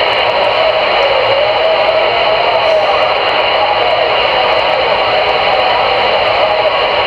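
CRE 8900 CB radio receiving an open channel 22 (27.225 MHz) between transmissions: steady static hiss from its speaker, with a wavering whistle running through it.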